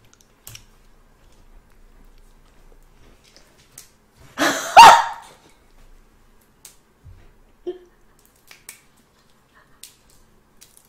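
A dog barking: one short, loud double bark about four and a half seconds in, with faint clicks before and after.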